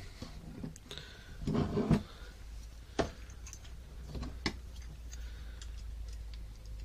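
Scattered light clicks and taps of a carbon-fibre quadcopter frame and a plastic cam plate being handled and knocked together, with a sharp click about three seconds in.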